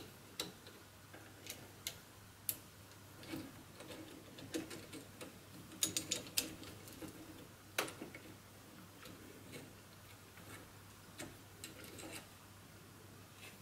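Faint, irregular metallic clicks and ticks of a hex key working the bolts on a 3D printer's extruder assembly and of the parts being handled, a few louder clicks bunched together about six seconds in.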